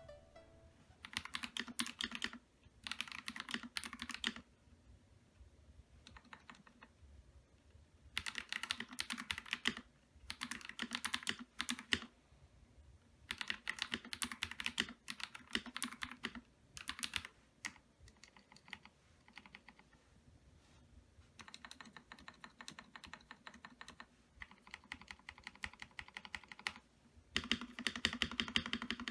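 Akko PC75B Plus mechanical keyboard being typed on: spells of rapid keystrokes broken by short pauses, softer for a stretch past the middle, then louder again near the end.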